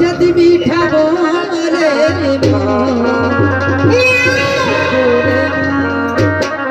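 Indian folk music with a wavering sung or played melody over drums; a steady low note comes in about two seconds in, and a few sharp drum strokes land near the end.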